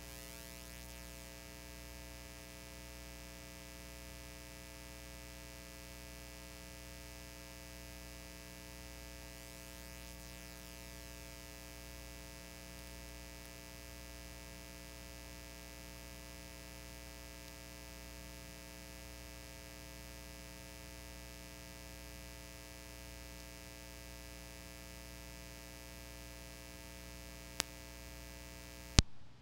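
Steady electrical hum with a stack of fixed tones, like mains hum in an audio line. There is a faint click near the end, then a sharper click as the hum cuts off.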